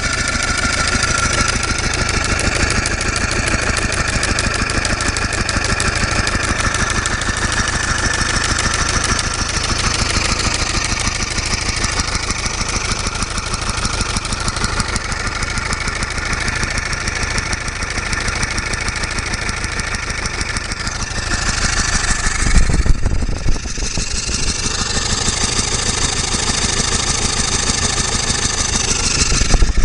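Original Stanley steam car two-cylinder engine running steadily on compressed air, with a fast, even patter of exhaust beats and mechanical clatter. About two-thirds of the way through come a few loud low thumps.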